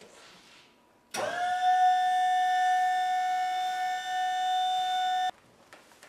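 A loud siren-like wail that sweeps up in pitch about a second in, holds steady as a chord of several tones for about four seconds, then cuts off abruptly.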